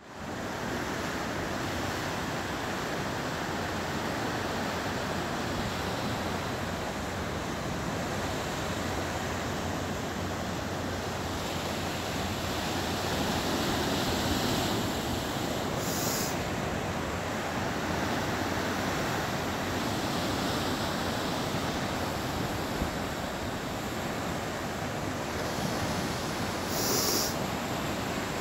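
Ocean surf and wind, a steady wash of noise that swells slightly now and then, with two brief high hisses, one about halfway and one near the end.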